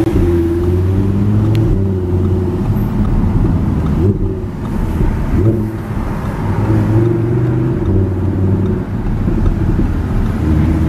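The 2015 Audi R8 V10 Plus's 5.2-litre V10 running at moderate throttle, heard from inside the cabin with its exhaust in sport mode. The engine note rises and drops a few times, with a couple of brief breaks about four and five and a half seconds in.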